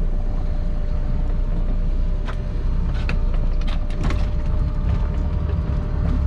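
Fishing boat's engine running steadily, a low rumble with a faint steady whine over it, while the boat motors to the next string of pots. A few sharp knocks or clicks land on deck about two, three and four seconds in.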